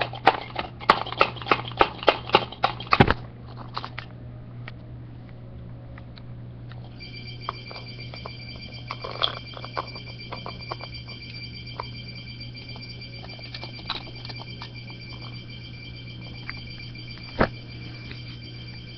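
A phone sounding a steady high electronic beep, several pitches at once, starting about seven seconds in and holding on. Before it, a quick run of clicks and taps for the first three seconds, and a low hum underneath throughout.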